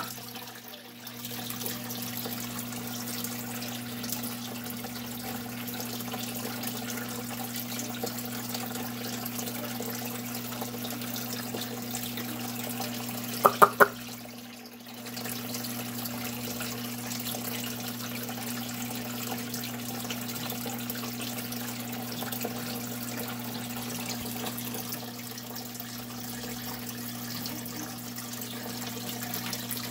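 Water from a tank filter's spout pouring and trickling steadily into shallow water, over a steady low hum. About halfway through there are three sharp clicks in quick succession.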